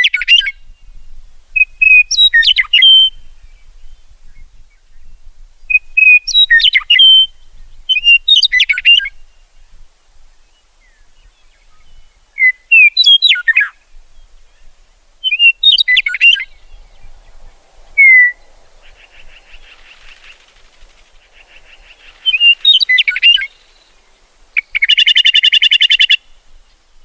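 Meadowlark singing: short, loud whistled song phrases repeated every two to four seconds, each opening on a held note and breaking into quick slurred notes. Near the end a softer rapid chatter and then a buzzy rattling call come in.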